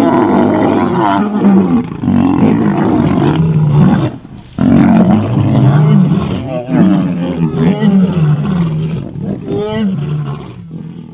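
Lions roaring: deep, drawn-out moaning calls that overlap, with a short break about four seconds in and a fade near the end.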